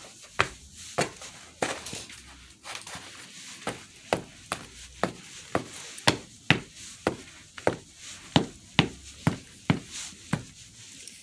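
Boots crunching through deep snow: steady footsteps at about two a second.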